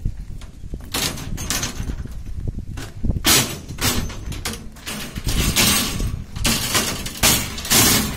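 Footsteps crunching on railway track ballast stones, an irregular walking rhythm of about one or two steps a second, over a steady low rumble.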